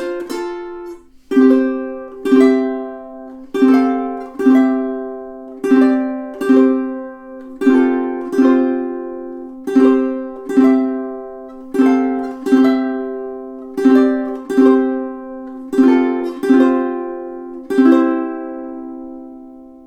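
aNueNue UT-200 Moon Bird tenor ukulele. It opens with a quick run of notes, then settles into chords struck about once a second, each left to ring. The last chord rings out and fades near the end.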